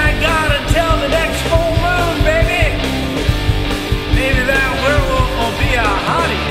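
Punk rock song playing loud and steady: guitar and drums under a sung vocal line.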